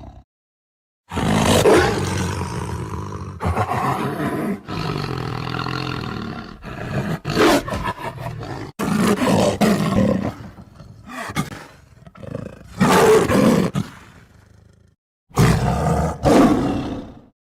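Tiger roars and growls, a string of separate deep calls of varying length, some rising sharply and fading off. They are spliced together, with abrupt silent gaps between some of them.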